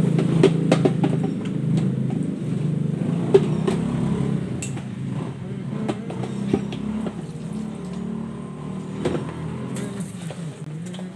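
Plates and dishes clinking and knocking during hand dishwashing, a scatter of sharp clatters over a steady low engine-like hum.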